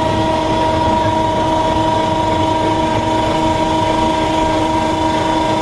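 Steady machine hum with a constant whine, over a low background rumble.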